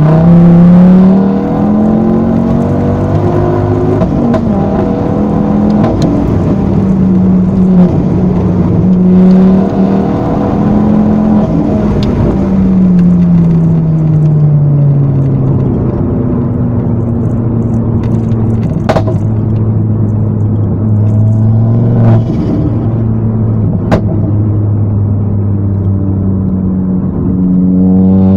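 Ford Focus ST225 Mk2's turbocharged 2.5-litre five-cylinder engine heard from inside the cabin, pulling hard at the start, then easing off with the pitch falling and cruising at a steady note. A few sharp clicks stand out over it.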